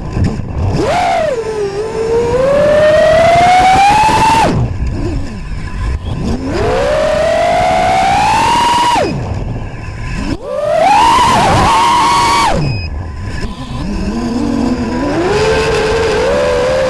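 Racing quadcopter's Emax RS2205S 2300KV brushless motors spinning three-blade props, heard on board: a loud whine whose pitch climbs steadily as throttle is held, then drops away sharply as throttle is chopped, three times, with a new climb starting near the end.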